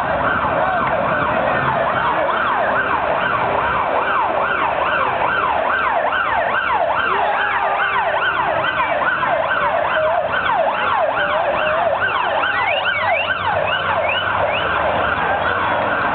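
Emergency vehicle siren in a fast yelp, sweeping up and down about two to three times a second, changing to a slower rising wail near the end. A crowd's hubbub runs underneath.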